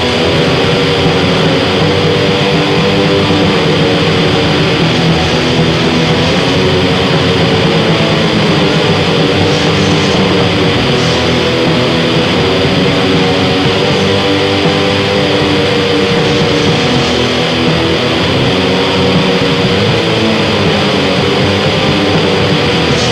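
Raw black metal: a dense, unbroken wall of distorted guitar over drums, holding one steady, loud level throughout.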